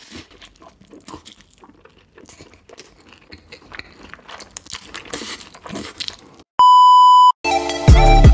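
Close-miked chewing and biting of cheesy pizza, soft wet crackles with a few crisp bites. About six and a half seconds in, a loud steady beep sounds for under a second, and loud music with a heavy bass beat starts near the end.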